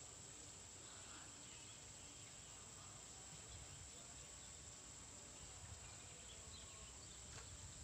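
Near silence: faint open-air ambience with a steady, high-pitched insect drone.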